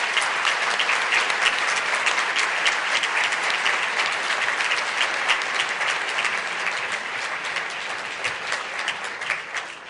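Audience applauding, a dense clapping that thins and fades out near the end.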